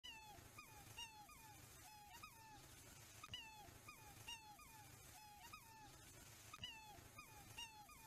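Black swans calling: a quiet run of short, high bugling notes, about two a second and often in pairs, each note bending in pitch.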